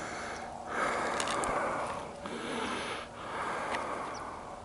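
A person breathing heavily close to the microphone, about three long breaths in a row.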